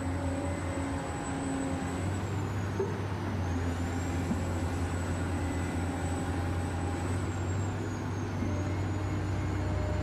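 Huina 1580 RC excavator running as it digs and swings its bucket: a steady high whine that dips in pitch twice, over a low hum.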